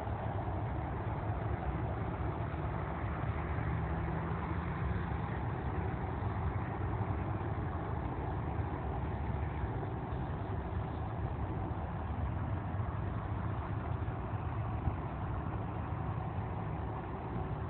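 Distant Boeing 767 freighter's jet engines running as it moves along the runway: a steady rumble and hiss that fades slightly near the end.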